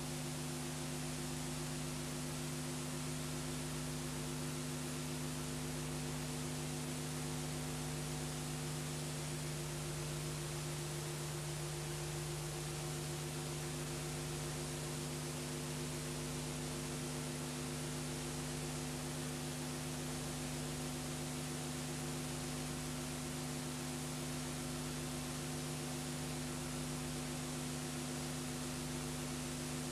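Steady electrical mains hum with several steady overtones over an even hiss, the background noise of a blank stretch of an old analogue video transfer.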